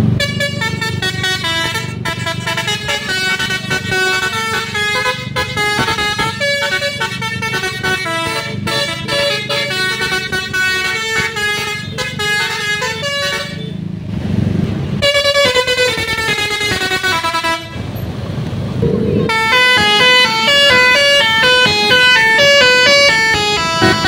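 Telolet basuri multi-note air horn on a tour bus playing a running melody, stepping quickly from note to note over the low rumble of the bus engine. The tune breaks off briefly twice, about 14 seconds in and again around 18 seconds.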